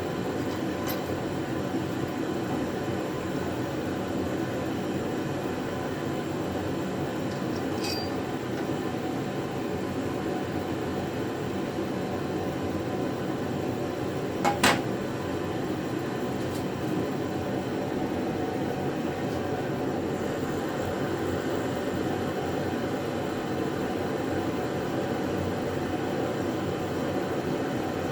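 Steady, even rumbling noise, with one sharp click about halfway through and a few faint ticks.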